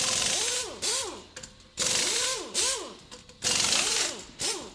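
Impact wrench running lug nuts on while the machined brake rotor and wheel go back onto the car, in three bursts whose whine rises and then falls in pitch.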